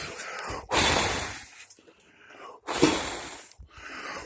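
A person breathing hard right at the microphone: long noisy rushes of breath about every two seconds, with quieter breaths between.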